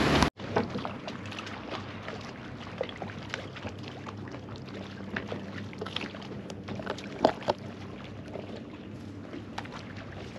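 The rush of wind and wake from a boat running at speed cuts off abruptly a moment in. After it come faint small slaps, ticks and knocks of water against the hull of the stopped fiberglass boat, over a low steady hum.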